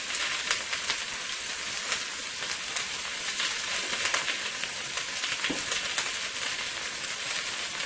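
Sliced vegetables sizzling in hot olive oil in a pot on the stove: a steady hiss with many small crackles throughout.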